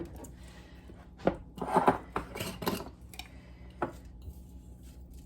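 Kitchen utensils clinking and knocking against dishes and ingredient containers while seasonings are added to a sauce. A single knock about a second in, a busier run of clatter around two seconds, and one more knock near four seconds.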